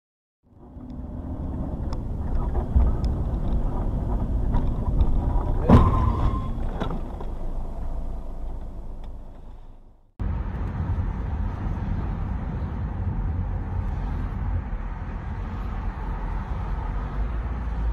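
Car interior and road noise from a dashcam, steady and low. About six seconds in comes a single sharp bang of a collision, with a brief ringing after it and a few lighter knocks around it. The sound fades away, then cuts abruptly to the steady engine and road noise of another car driving.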